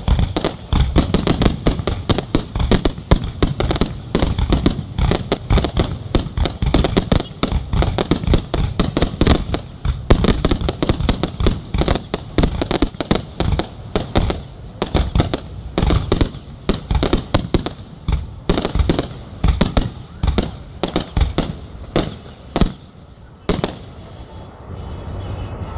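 Aerial fireworks display: shells bursting in a fast, dense barrage of bangs that thins out to spaced single bangs after about sixteen seconds and stops about two seconds before the end.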